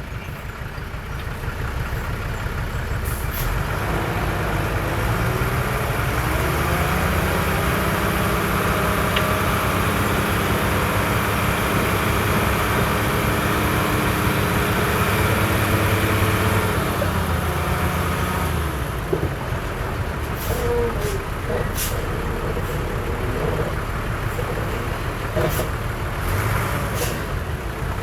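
Heavy diesel earthmoving engine working under load. It builds up over the first few seconds, runs hard and steady for most of the time, then eases back, with a few sharp clanks near the end.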